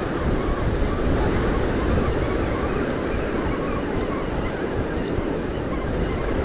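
Surf breaking on the beach, with strong wind buffeting the microphone in uneven low rumbles.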